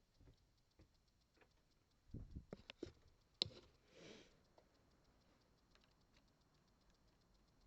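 Scattered light clicks and knocks of small metal tools and lock parts being handled. A quick cluster comes about two seconds in, one sharper click at about three and a half seconds, then a brief rustle; between them it is near silence.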